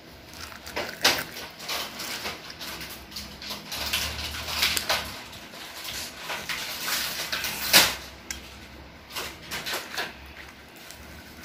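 Crisp seaweed sheets crackling and crunching as a child bites and chews them: irregular crunches with one loudest snap about two-thirds through, dying away near the end.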